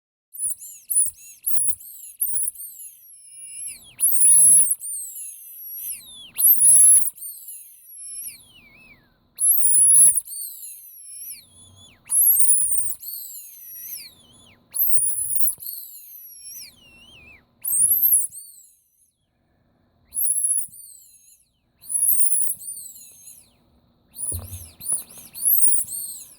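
Ledraplastic Snow White rubber squeaky toy squeezed over and over: shrill, high squeaks that rise and fall in pitch. Some come as quick runs of short squeaks and some are longer drawn-out ones, with short pauses between.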